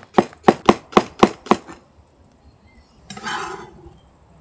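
Knife slicing green onion thin on a plastic cutting board: quick, even taps about four a second that stop after about a second and a half. A little after three seconds, a short scrape as the sliced onion is gathered across the board with the knife.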